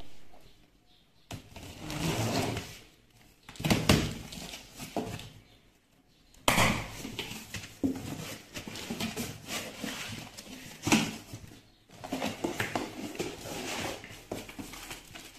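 Cardboard box being opened by hand: irregular scraping and rustling of cardboard flaps and lid, with packing foam shifted near the end.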